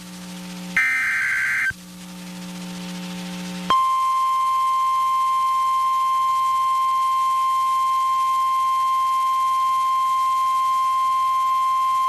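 NOAA Weather Radio alert sequence: a one-second buzzy burst of SAME digital header data, a pause of about two seconds, then the steady single-pitch 1050 Hz Warning Alarm Tone starting about four seconds in. The tone signals that a warning broadcast, here a severe thunderstorm warning, is about to follow.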